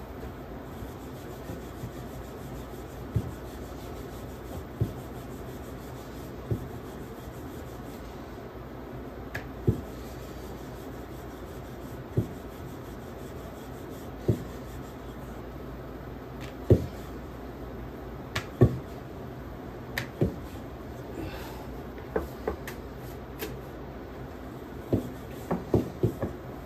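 Wooden rolling pin rolling out chapati dough on a round wooden board: a soft rubbing with scattered short wooden knocks, coming faster near the end.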